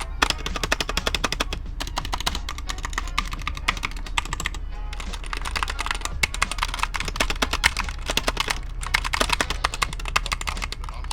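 Mechanical keyboard switches being typed on rapidly, a dense run of key clicks in bursts with brief pauses.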